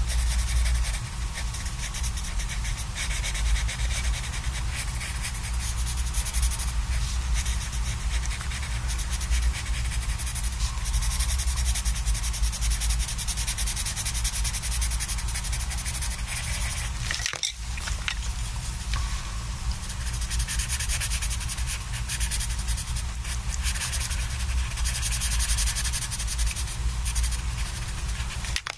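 Coloured pencil shading on sketchbook paper: a steady scratchy rubbing made of quick back-and-forth strokes, over a low steady hum. The rubbing breaks off briefly about two-thirds of the way in.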